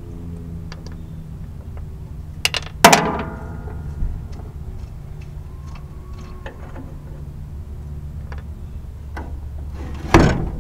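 Metal clanks and small clicks from hand tools working on a Case 1190 tractor's seat mounting hardware, with a loud ringing clang about three seconds in and another sharp knock near the end, over a steady low hum.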